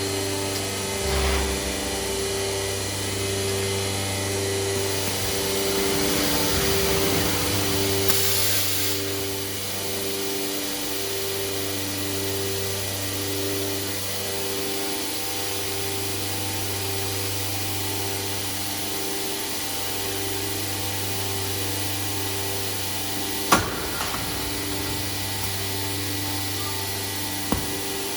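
IMA Bima 400V CNC woodworking machining centre running: a steady machine drone with a pulsing tone that repeats about once a second. A hiss swells around the 6 to 9 second mark, and two sharp clicks come near the end.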